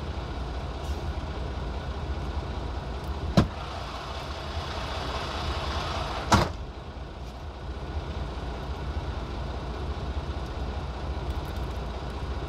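Steady low rumble of an idling truck heard inside the cab, with two sharp taps about three seconds apart as a wooden spoon knocks against the dishes while sour cream is spooned onto stuffed vegetables.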